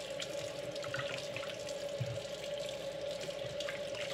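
Kitchen faucet running steadily into a plastic bowl of water while raw chicken pieces are rinsed by hand, with small splashes and sloshes as the pieces are turned over.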